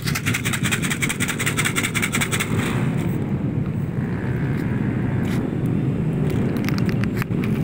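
Plastic bottle of dry cat food shaken rapidly, rattling for about two and a half seconds, followed by a few scattered clicks. A steady low rumble of traffic runs underneath.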